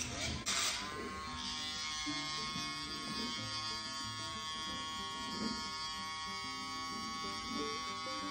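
Electric pet nail grinder spinning up and running at a steady high whine while grinding down a dog's dew claw.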